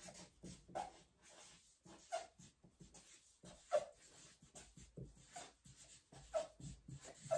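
Felt-tip marker writing on a paper sheet: short scratchy strokes with several brief squeaks, quiet.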